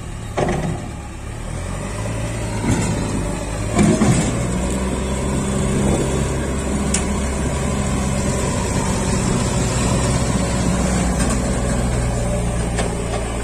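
Diesel engines of a JCB backhoe loader and an Eicher tractor working hard under load to push and pull a mud-stuck trolley free. The engine note rises about a second and a half in and then holds steady, with a short knock near the start and another about four seconds in.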